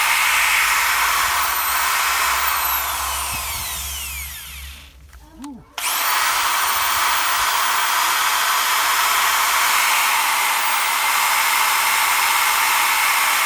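Bosch GSB 20-2 RE impact drill running free at speed after its carbon brushes were replaced with brushes cut down from a washing machine motor. Its motor winds down, falling in pitch, about four seconds in. It is triggered again about six seconds in and runs steadily.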